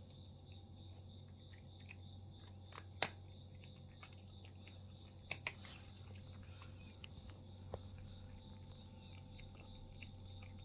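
A cat crunching dry kibble: many small faint crunches, with a sharp crack about three seconds in, two more around five and a half seconds and one near eight seconds. A faint steady high-pitched whine and a low hum run underneath.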